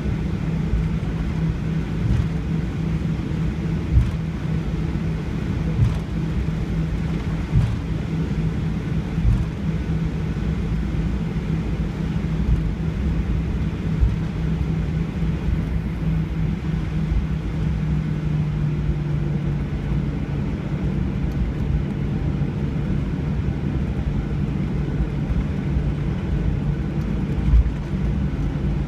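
Airliner cabin noise: the engines' steady low drone with a constant hum, and a few short low thumps through the airframe.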